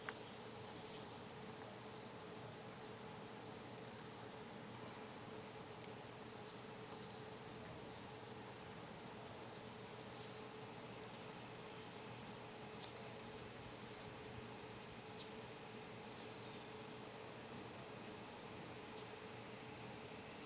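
Steady high-pitched chorus of insects shrilling without a break, with a few faint clicks from a rifle scope being handled.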